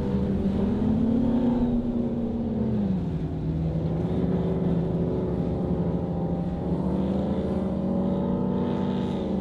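High-performance powerboat engines running hard at speed, their pitch rising about a second in, dropping around three seconds in and climbing again later, then cutting off suddenly.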